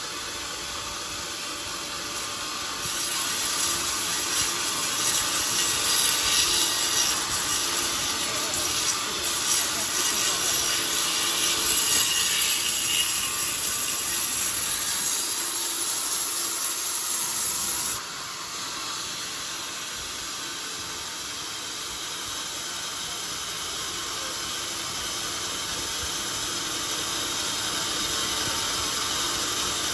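Sawmill band saw blade ripping lengthwise through an old, very hard coconut-palm log, a steady high hiss of sawing. It gets louder a few seconds in, drops abruptly past the middle, then slowly builds again.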